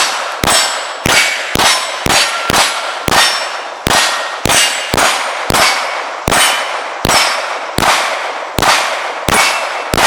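A rapid string of centerfire pistol shots, about two a second and roughly eighteen in all, each followed by a metallic ring as steel targets are hit.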